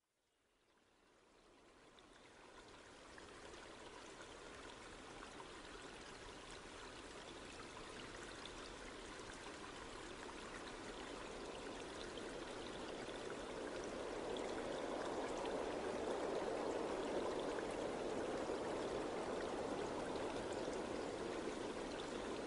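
Steady rushing sound of running water with fine crackles, fading in from silence and slowly growing louder over the first fifteen seconds or so.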